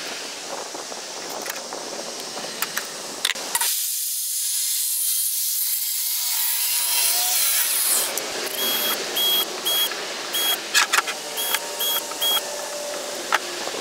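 Cordless drill run in a rapid series of short trigger bursts with a steady high whine, drilling into a white StarBoard polymer sheet. Earlier, light clicks of tools handled on the board give way to a few seconds of steady high hiss.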